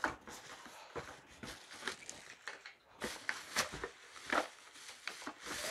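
A cardboard box and plastic packaging rustling and crinkling, with scattered light clicks and knocks, as a rotary drum grater is unpacked by hand.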